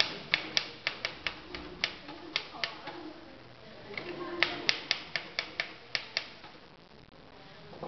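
Typewriter keys striking in two quick runs of about ten strokes each, with a pause of over a second between them.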